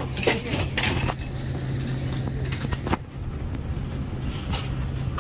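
Steady low hum of a parked Airbus A330-200's cabin, its ventilation air running, with a few light rustles and knocks in the first second or so. The hiss above the hum thins out about three seconds in.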